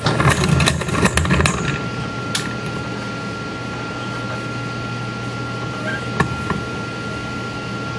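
Rapid clicking of a mainspring winder's ratchet as a clock mainspring is stretched out on it, stopping about a second and a half in. After that a steady hum, broken by a couple of single clicks.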